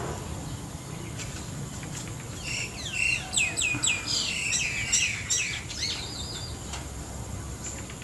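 A bird calling from the palm: a quick run of high chirps lasting about three seconds, midway, then a short trill.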